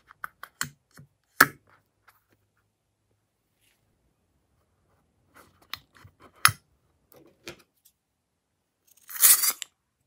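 Hands handling a filled rubber balloon: scattered taps, clicks and rubbing of the latex, with one short, louder rustle about nine seconds in.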